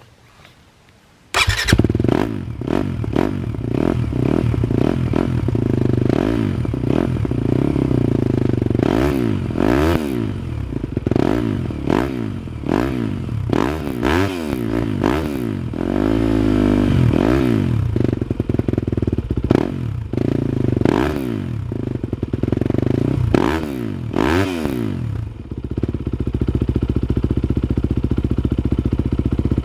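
A 2019 Yamaha YZ250FX's 250cc single-cylinder four-stroke engine, breathing through a full FMF titanium Mega Bomb exhaust with a 4.1 muffler, fires up on its first start about a second and a half in. It is then blipped in a string of quick revs, each rising and falling, and settles into a steady idle near the end.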